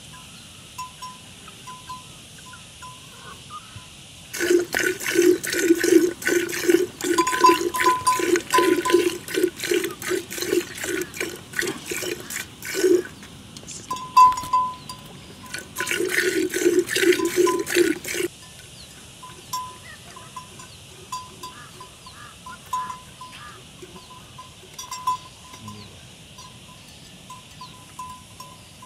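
A cow being milked by hand into a metal vessel: jets of milk squirt into the bowl in a steady rhythm of about two to three squirts a second, each with a short ringing hiss. They come in two runs, a long one and then a shorter one after a brief pause.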